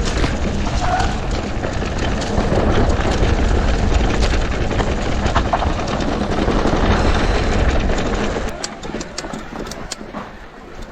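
Electric mountain bike ridden up a rough trail: a dense, heavy rumble of the bike and tyres working over the ground. About eight and a half seconds in the rumble drops sharply, leaving scattered sharp clicks.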